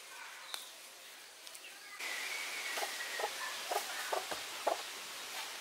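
Chickens clucking: a string of short clucks in the second half, after a drawn-out falling call, over a steady outdoor background hiss.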